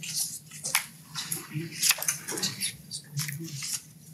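Paper rustling and handling noises: a string of short, irregular crackles and clicks, with faint low murmuring underneath.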